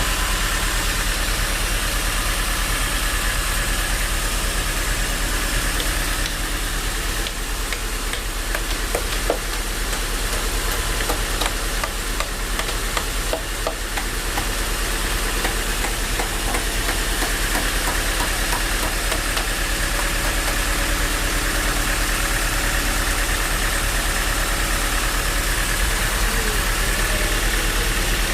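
Sawmill machinery running steadily, a constant mechanical hum and hiss, with a spell of light clicks and knocks in the middle.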